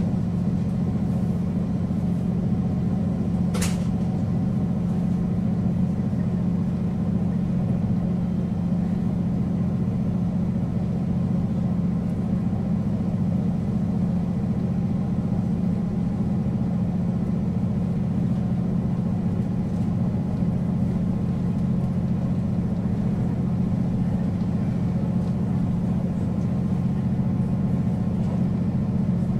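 JR Hokkaido KiHa 40 diesel railcar's engine idling steadily while the car stands stopped, with one short sharp click about three and a half seconds in.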